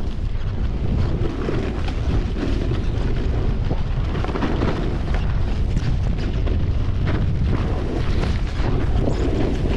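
Wind buffeting the microphone during a snowboard run, a heavy steady rumble, with the rough scraping of the board over snow.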